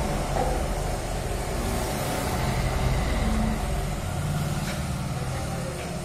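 Road traffic passing outside: engine and tyre rumble of cars and other vehicles driving by, swelling about two to three seconds in and then easing.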